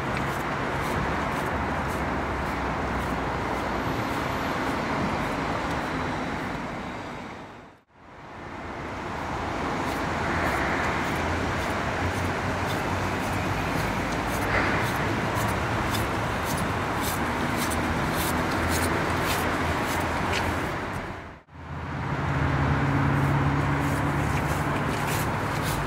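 Steady road traffic noise, a continuous hiss and rumble of passing cars, briefly dropping out twice.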